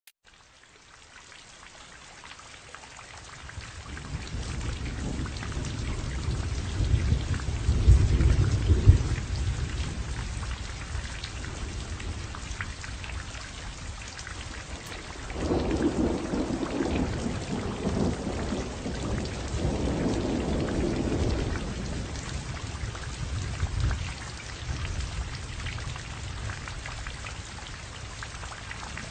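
Steady rain falling, fading in over the first few seconds, with rolling thunder rumbling low: a long rumble peaking about eight seconds in and another from about fifteen to twenty-two seconds.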